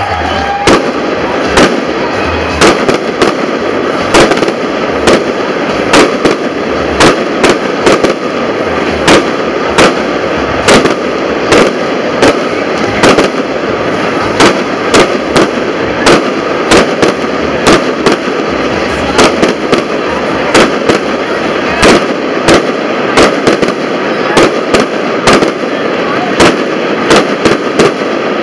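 Fireworks display going off overhead: a steady run of sharp aerial bangs, about two a second, over a continuous noisy din.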